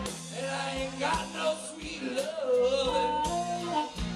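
Live blues band playing: a harmonica played into a cupped microphone carries a bending, wavering lead line over bass, electric guitar and drums.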